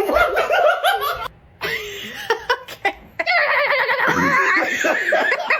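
People laughing hard, in three bursts, the last and longest near the end.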